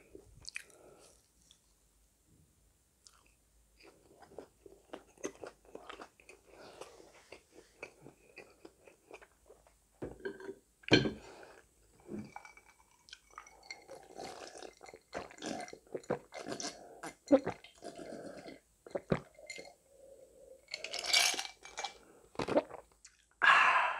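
Close-miked chewing and crunching of a fried chicken nugget. Later a glass of iced cola is drunk down, and the ice rattles in the glass near the end.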